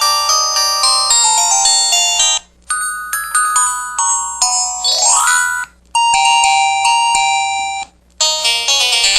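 KTF-X5200 mobile phone ringtones and effect sounds played one after another: electronic chiming melodies, each cut off after a few seconds with a brief silence before the next. The second clip ends in a rising sweep.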